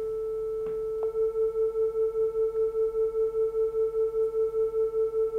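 A steady 440 Hz sine tone from a smartphone tone generator, joined about a second in by a second phone's 445 Hz tone; together they beat, the loudness swelling and fading about five times a second. A light tap is heard just before the second tone comes in.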